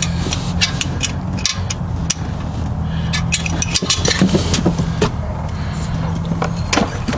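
Irregular metal clinks of a hand wrench working on exhaust header bolts under a pickup, over a steady low hum that stops near the end.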